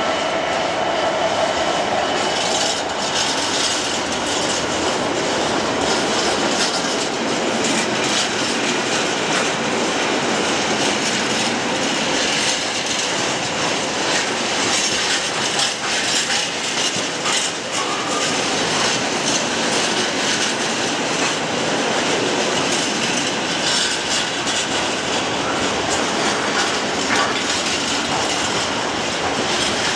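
Empty intermodal container flat wagons of a freight train rolling past at low speed, their wheels clattering steadily over rail joints and pointwork.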